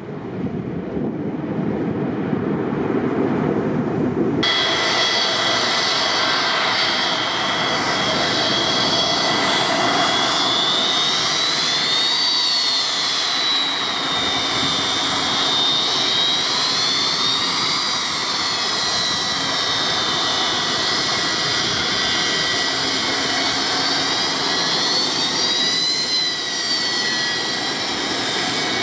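Boeing 727 freighter's rear-mounted Pratt & Whitney JT8D jet engines whining steadily as it taxis, with high tones that slowly rise and fall several times. For the first four seconds or so there is only a low rushing noise, which changes abruptly to the engine whine.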